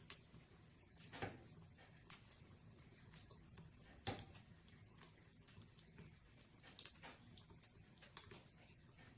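Burning firewood crackling in a fireplace: sparse, irregular sharp pops, about six of them, the loudest about two-thirds of the way in, over a faint low hum.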